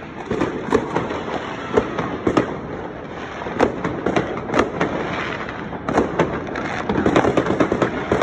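Fireworks going off all around: an irregular series of bangs and cracks over a continuous haze of more distant bursts. The cracks come thick and fast near the end.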